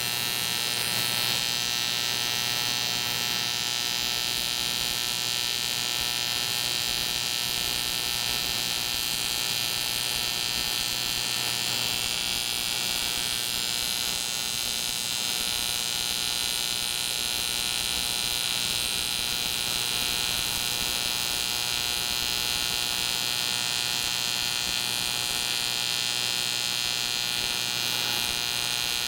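AC TIG welder buzzing steadily while it welds the aluminum crankcase, a constant electric hum with a raspy upper edge.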